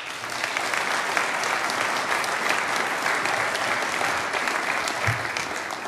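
Audience applauding: dense clapping from a seated crowd that starts abruptly and dies away near the end.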